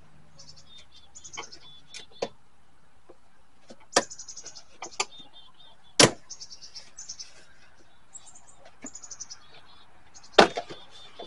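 Scattered sharp clicks and knocks of plastic door-panel parts and wiring being handled inside a pickup's door, the loudest about six seconds in and again near the end. Repeated high chirping trills run in the background.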